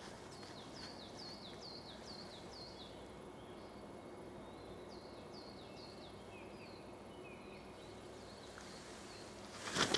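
A small songbird singing: a quick run of high, downward-slurred notes, about three a second, sung twice. Just before the end, a few loud scuffs and thumps of a disc golfer's footsteps stepping into his throw on the tee pad.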